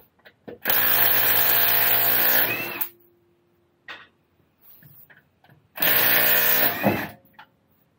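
Cordless impact wrench loosening the wheel nuts on a car's front wheel: two runs, the first about two seconds long, the second about one second, with small clicks between.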